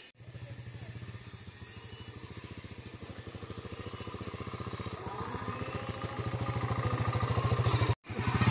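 Small underbone motorcycle's engine running at low speed with an even, fast putter, growing steadily louder as the bike approaches and pulls up. The sound cuts out for a moment near the end.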